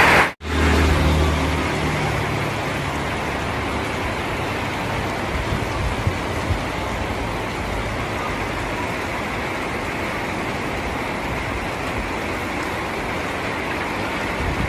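Steady rain falling, an even hiss, with a low rumble under it for the first few seconds. A brief end of music cuts off about half a second in.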